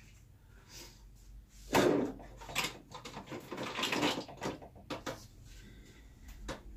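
Kitchen drawer or cupboard being opened and rummaged through: a sharp knock about two seconds in, then a couple of seconds of rattling, and a few light clicks near the end.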